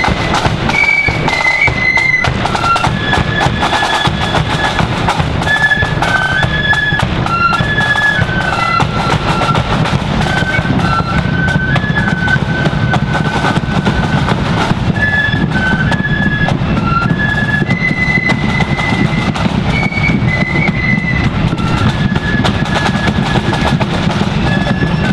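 Marching flute band playing a tune, the flutes carrying a high melody over steady drumming with a bass drum.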